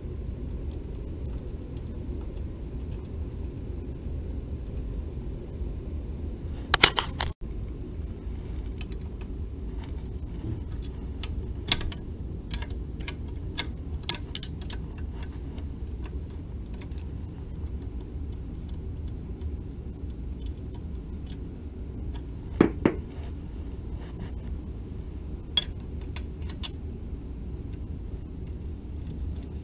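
Small metal lathe parts and tools being handled, giving scattered clicks and clinks, with two louder clattering knocks, one a little under a quarter of the way in and one about three-quarters through, over a steady low background rumble.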